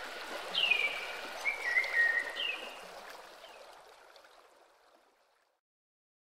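Nature-sound backing track of a running stream with a bird's repeated short, falling chirps, fading out to silence about five seconds in.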